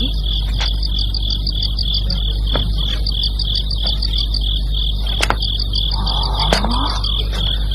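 Crickets chirping in a steady, rapid pulse of high notes, several a second, over a low steady hum.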